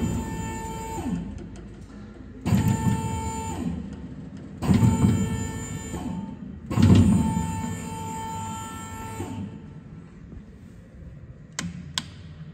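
Electric drive of a Perfecta BSH3-650 paper stack lift running in four short bursts, driving the lift table. Each burst starts with a low surge and carries a steady whine that winds down when it stops, and the last burst is the longest. Two sharp clicks come near the end.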